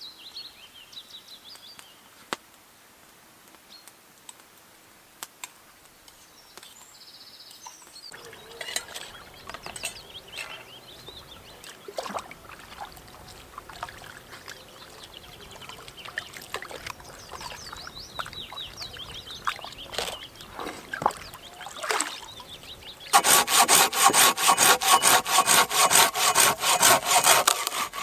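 A small hand saw cutting through wood in quick, even strokes, about four a second, starting near the end. Before that come quieter rustling and knocks of handling, with a few bird chirps at the start.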